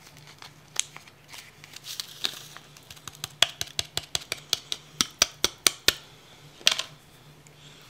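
Small paper sachet of Sea-Monkeys water purifier being handled and opened in the fingers: a run of crisp clicks and crinkles, quickening to about three or four a second in the middle, with a last pair near the end.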